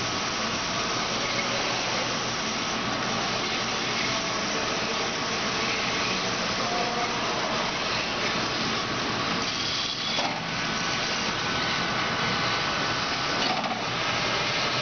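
Amada HA-250 horizontal band saw running steadily with no workpiece in the vise, its 2.2 kW blade drive and hydraulic pump making a constant machine noise. About ten seconds in the sound changes briefly, as the saw head rises on its hydraulics, and a faint whine stays after it.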